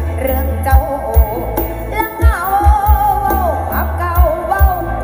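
A song with a singing voice and deep, loud bass thumps, played through a DIY PA stack with OD15 subwoofer cabinets.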